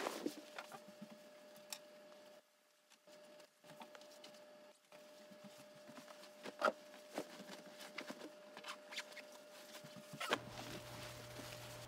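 Handling noise from a phone being moved around: scattered soft knocks and rustles over a faint steady hum. A lower hum comes in near the end.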